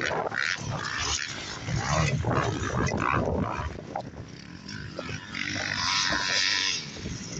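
Motocross dirt bike engines revving hard at racing speed, swelling and fading as the bikes pass.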